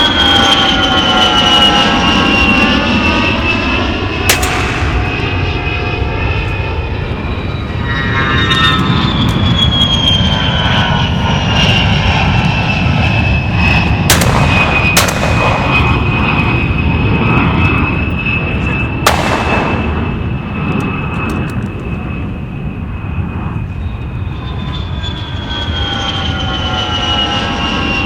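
A fixed-wing aircraft engine droning overhead: a steady engine tone whose pitch slowly falls as it passes. A few sharp bangs cut through it, twice close together near the middle.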